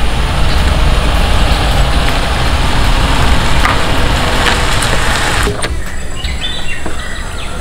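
A Tata Nano small car drives along the lane, its engine and tyres giving a steady running noise. About five and a half seconds in the noise cuts off suddenly, leaving a quieter background with a few faint high chirps.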